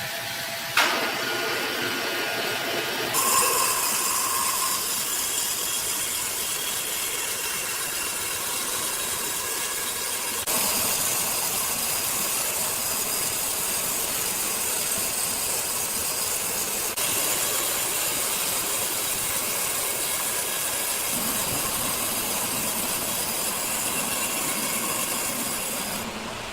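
Large sawmill saw running and cutting through wood: a steady hiss of machine noise that changes tone abruptly a few times.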